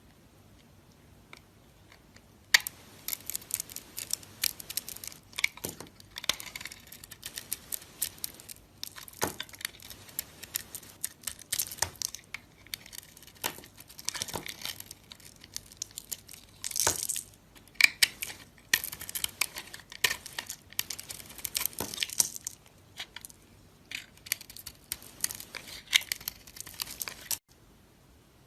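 Knife cutting through dry soap: a dense run of crisp crackles and scrapes. It starts about two and a half seconds in and stops abruptly near the end.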